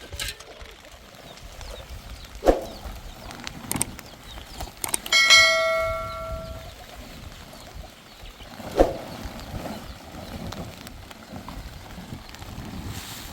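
Several sharp knocks, and about halfway through one metallic strike that rings like a small bell for a second or so before dying away.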